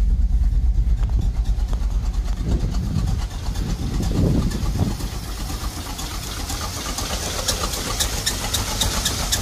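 1987 GMC V-Series pickup engine idling roughly with a heavy misfire, the engine not happy. Its low running sound sags and stumbles partway through, and a regular ticking comes in over the later part.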